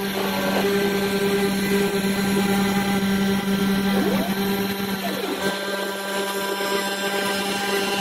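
Small CNC mill running: a steady spindle whine with cutting noise as a small end mill mills a pocket in black plastic at an increased feed rate. A couple of brief rising-and-falling tones come through around the middle.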